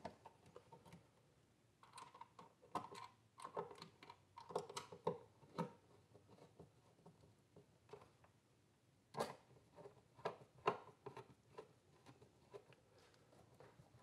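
Faint, scattered clicks and light scrapes of a plastic outlet wall plate being lined up over the receptacle and a screwdriver being handled against it.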